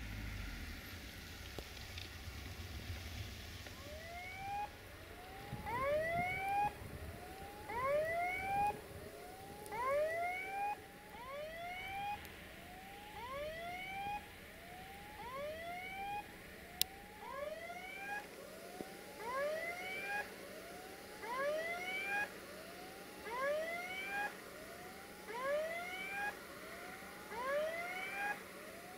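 Electronic level-crossing warning sounder going off, giving short rising whoop tones about once a second, as a train approaches.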